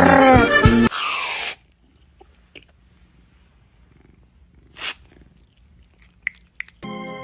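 Background music that cuts off about a second in with a brief whoosh. A quiet stretch follows with a short breathy puff about five seconds in and a couple of faint high squeaks, then music starts again near the end.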